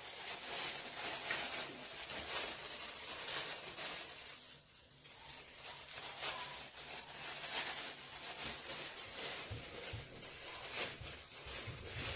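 Plastic oven bag crinkling and rustling as it is gathered and tied shut around a turkey, easing off briefly about halfway through.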